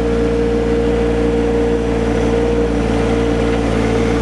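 Compact tractor engine running at a steady speed: a low hum with a steady mid-pitched whine over it that never changes.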